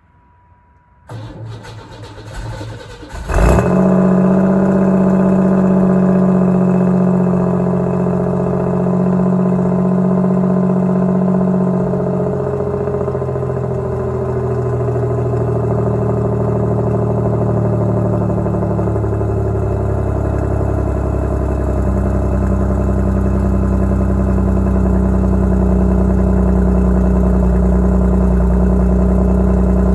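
A car's 140-horsepower engine being cold-started: the starter cranks for about two seconds, the engine catches with a loud burst about three seconds in, then settles into a steady fast idle whose tone shifts slightly partway through.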